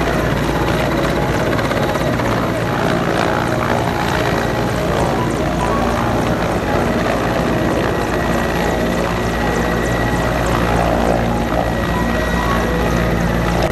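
Mi-17 military transport helicopter hovering low overhead: a loud, steady chop of the main rotor with a constant high turbine whine over it.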